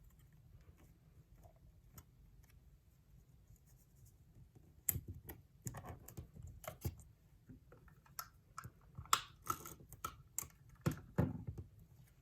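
Paper scraps and tape being handled on a notebook cover: irregular crinkles, taps and clicks, starting about five seconds in after a quiet stretch.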